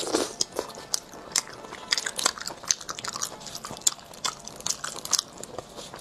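Close-miked mouth sounds of eating spicy sea snails: chewing with many sharp wet clicks and smacks, loudest right at the start.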